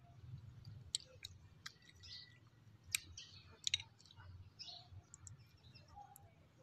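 Faint eating sounds: chewing, and a metal spoon clicking against a glass bowl in a handful of sharp clicks, two close together near the middle.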